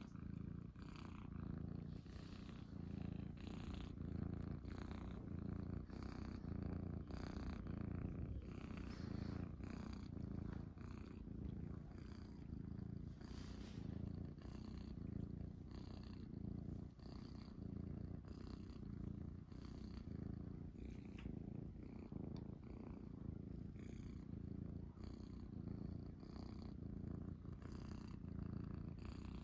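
Ginger munchkin cat purring steadily close up while being stroked. The purr swells and fades about once a second with each breath.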